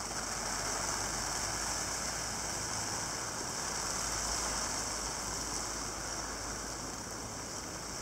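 Steady hiss of rain driven by the strong wind of a passing cold front, with a low wind rumble underneath.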